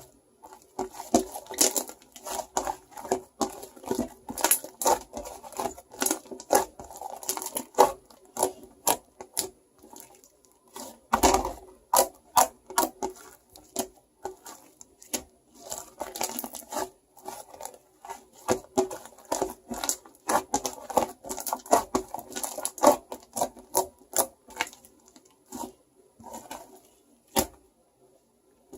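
Hands squishing and poking shaving foam close up: an irregular run of sticky clicks, crackles and squelches, several a second, with one louder squelch about eleven seconds in.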